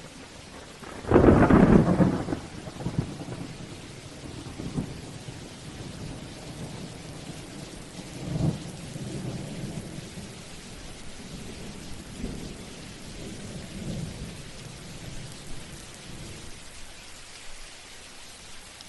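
Thunderstorm: steady rain hiss, with a loud thunderclap about a second in that lasts a second or two and then rumbles on. A second, sharper strike comes about eight seconds in, followed by softer rolling rumbles that die away near the end.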